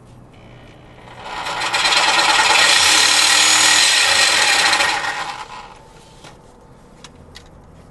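Corded reciprocating saw with a long blade cutting through a rusted exhaust pipe. It starts about a second in, runs at a steady rasp for about four seconds, then winds down. The blade is judged worn out right afterwards.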